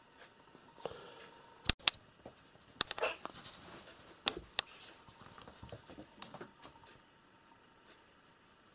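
Cats playing on a carpet: soft scuffling and patter of paws, broken by a few sharp clicks and knocks, the loudest two close together about two seconds in.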